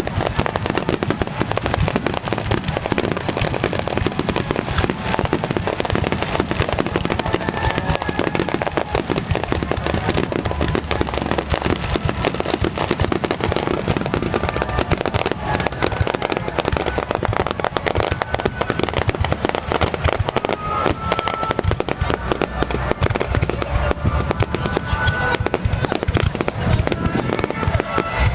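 Aerial fireworks bursting in rapid, unbroken succession: a dense, continuous crackle of bangs and reports.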